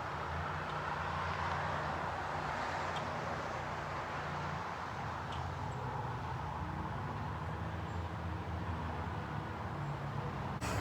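Steady vehicle noise: a low hum under an even hiss, with no clear change.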